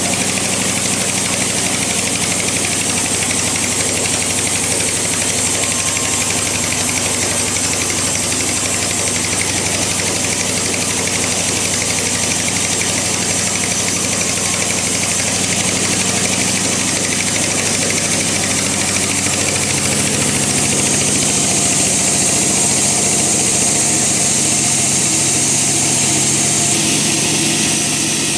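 Bandsaw running and cutting through a log: a steady motor hum under a loud, continuous high hiss. The tone shifts slightly about two-thirds of the way in and again near the end.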